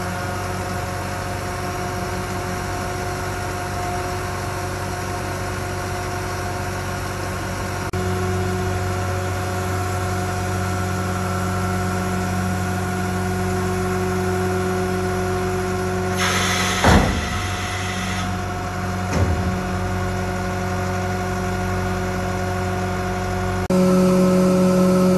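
2007 Sterling compactor garbage truck's diesel engine running steadily, with a constant hydraulic whine over it while the rear tailgate is raised. About two-thirds through, a hiss lasting about two seconds with a clank in it, then a single knock a couple of seconds later.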